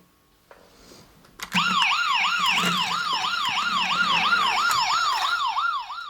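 Toy ambulance car's electronic siren sound effect: after a click about a second and a half in, a fast repeating yelp sweeps down and up about three times a second, then cuts off suddenly at the end.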